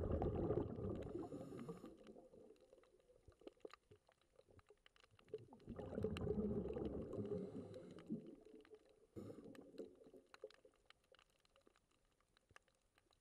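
Underwater sound on a coral reef: two long swells of rumbling water noise, a few seconds apart, over a scattered crackle of sharp clicks.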